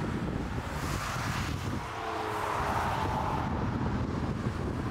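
Gusty wind buffeting the microphone over the steady noise of a jet airliner's engines as it lands in a strong crosswind, with a faint falling engine whine about two seconds in.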